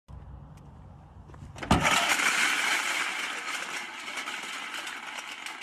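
A low rumble, then a sudden loud crash just under two seconds in, followed by a few seconds of dense crackling noise that slowly fades.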